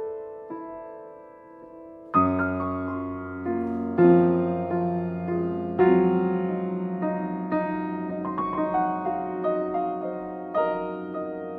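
Background piano music: a few soft notes fade away, then about two seconds in fuller chords come in over a held low note and carry on with notes struck every second or so.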